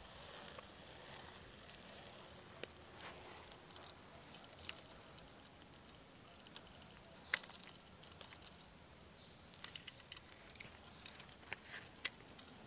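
Quiet outdoor background with scattered small clicks and rustles from handling a spinning rod and reel, one sharper click about seven seconds in and a quick run of clicks near the end. A faint steady high whine runs underneath.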